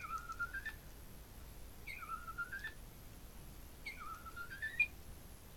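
Pet bird whistling the same call three times, about two seconds apart: each a short high note followed by a rising whistle.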